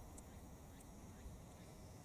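Near silence: faint outdoor ambience, a low rumble with two faint short high ticks.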